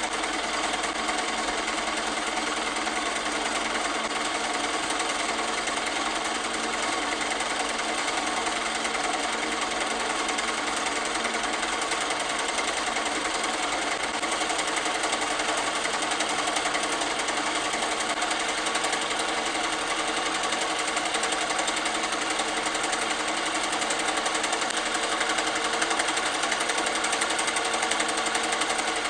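8mm film projector running, its film-transport mechanism making a steady, rapid mechanical clatter.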